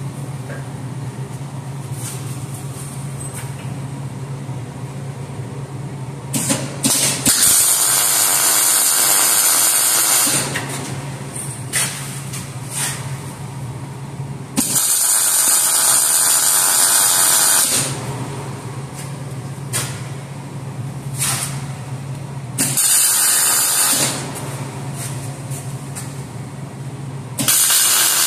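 Wire-feed welder tack-welding steel: the arc hisses and crackles in several separate bursts, each one to three seconds long, over a steady low hum between them.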